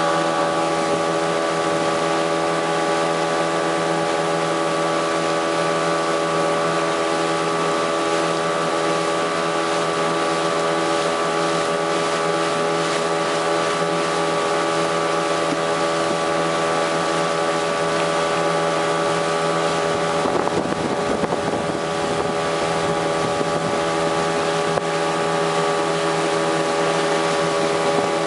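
Brand-new Parsun 15 hp outboard motor running steadily at constant speed, driving a small boat across open water. Wind buffets the microphone, with a gust about two-thirds of the way through.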